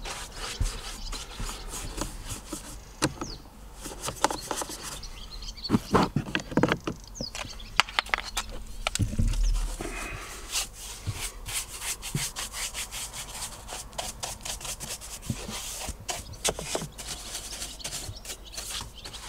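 Shaving-brush bristles scrubbing over a car's plastic interior door panel and trim, a dense run of short scratchy strokes as dust is brushed loose.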